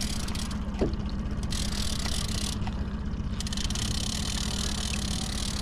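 Small outboard motor running steadily at trolling speed, with a brief knock a little under a second in.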